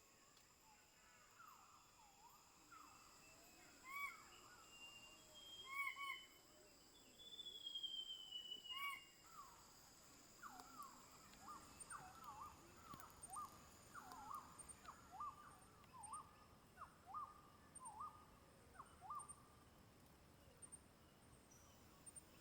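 Birds calling over a steady high insect drone. A few paired notes and one long descending whistle come first, then a run of about a dozen short swooping whistles, roughly one every two-thirds of a second, that ends a few seconds before the close.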